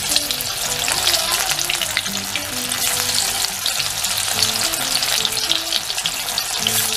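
Batter-coated pieces of tender jackfruit dropped one by one into hot oil in a kadai, the oil sizzling and crackling steadily as they deep-fry.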